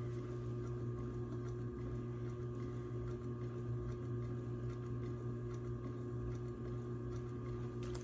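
Electric potter's wheel motor running with a steady hum while the wheel turns, stopping near the end.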